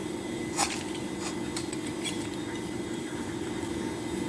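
Handheld rotary wire stripper being turned around a thick cable, its utility-knife blade scoring the insulation, with a few short clicks and scrapes; the sharpest click comes a little past two seconds in.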